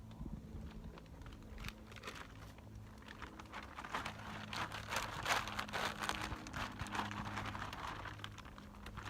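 A feed sack crinkling and rustling as it is shaken and rubbed, swelling to its loudest about halfway through and easing off again.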